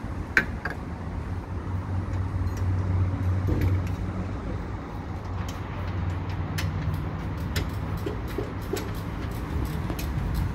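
A steady low mechanical hum, slightly louder a few seconds in, with scattered small clicks and knocks from hands and tools working on a car's air-conditioning lines under the hood.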